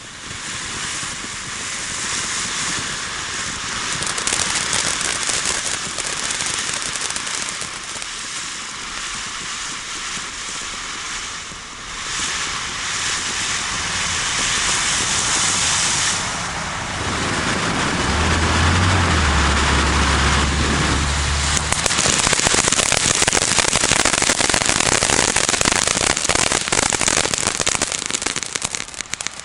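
Boomer 'Majestic' firework fountain burning, spraying sparks with a steady loud hiss that turns into dense rapid crackling in the last third. A low rumble comes in for a few seconds around the middle.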